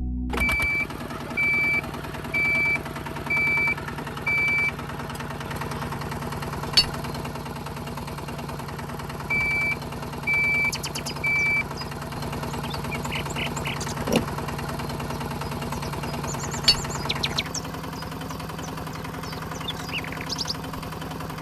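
Small motor of a DIY mini tractor running with a steady low hum. High electronic beeps about a second apart come over it, five at the start and three more about ten seconds in, like a reversing beeper.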